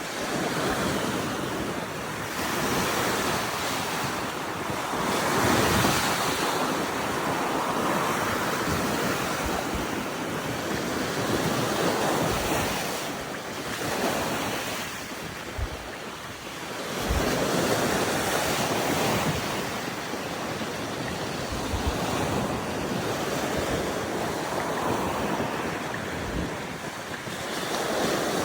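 Sea waves breaking on a beach, the surf swelling and falling back every few seconds, with strong wind blowing across the microphone and occasional low buffeting thumps.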